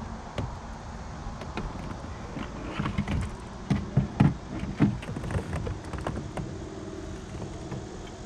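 Knocks and clunks of gear being handled in a fishing kayak, with a cluster of sharp knocks about three to five seconds in.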